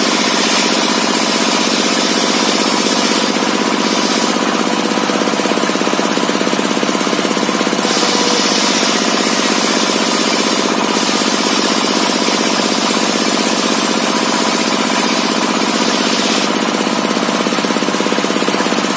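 Homemade sawmill table saw running, its large circular blade ripping lengthwise through a log with a loud, steady mechanical drone and the rasp of the cut. The high hiss of the cut thins out for a few seconds, twice.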